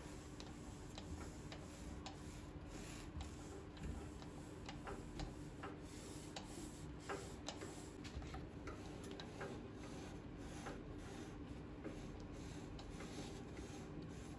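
Light, irregular clicks and ticks with soft rubbing as a cloth wipes oil onto a turned wooden cylinder held in a lathe chuck, the work turned by hand. A faint steady hum runs underneath.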